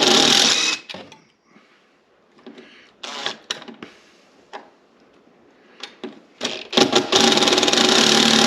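Handheld power driver running in short bursts to drive screws: one burst stops just under a second in, a few brief blips and clicks follow, and a longer steady run starts about seven seconds in.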